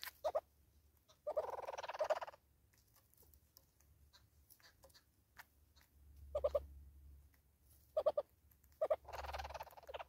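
Southern red-billed hornbills calling: short doubled clucks at intervals, and two runs of rapid clucks about a second long, one soon after the start and one near the end. Faint ticking of bills picking at seed in between.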